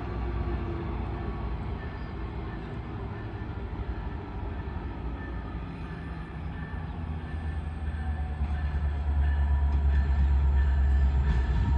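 Metra commuter train rumbling, the low rumble growing steadily louder over the last few seconds.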